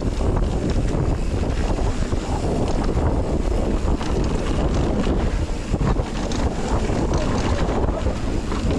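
Rushing whitewater of a mountain creek rapid, a dense steady roar, with wind buffeting the microphone.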